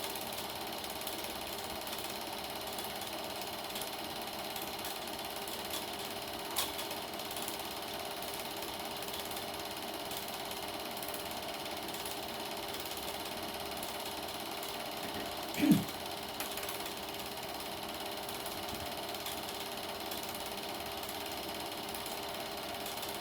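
Super 8 film projector running steadily, its motor and film-advance mechanism making a fast, even mechanical chatter. A small click sounds about six and a half seconds in, and a brief low sound, the loudest moment, comes about two-thirds of the way through.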